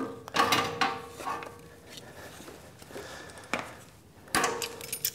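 Handheld HTP Quick Spot II spot welder clanking against the steel shelf bracket as its tongs are set in place. About four seconds in comes a short humming weld pulse of about half a second, fusing the sheet steel at that spot.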